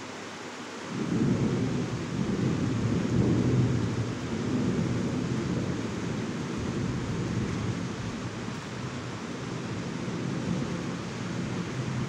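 Rain falling steadily, joined about a second in by a long low rumble of thunder that rolls on and slowly eases.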